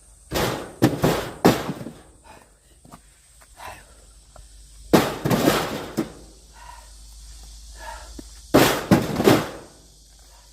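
Axe splitting firewood: three bouts of sharp wooden cracks and knocks a few seconds apart, each bout several quick impacts, as the axe bites and the log splits.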